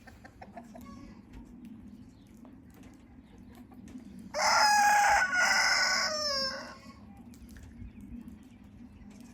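A rooster crowing once, about four seconds in: a loud call of roughly two and a half seconds in several parts, falling away in pitch at the end.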